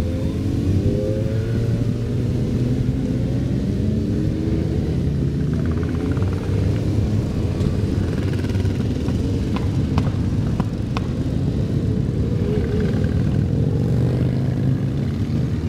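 A procession of motorcycles, a mix of sport bikes and cruisers, riding past slowly in a continuous rumble of many engines at low revs, with engines rising in pitch as riders pull away near the start. A few short clicks sound a little past the middle.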